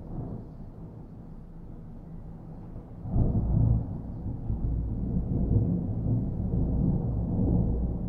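Distant thunder rumbling low. About three seconds in it swells suddenly into a louder rolling rumble that goes on, rising and falling, almost to the end.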